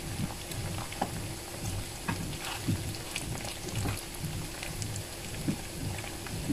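Batter-coated quail eggs (kwek kwek) sizzling and crackling in shallow hot oil in a frying pan, half deep-fried, with a few sharp clicks as tongs turn them.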